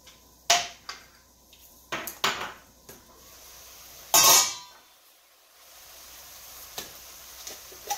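A frying pan being shifted on a gas stove's grates and its stainless steel lid lifted off: several sharp metal knocks and clanks, the loudest about four seconds in, with a short ring.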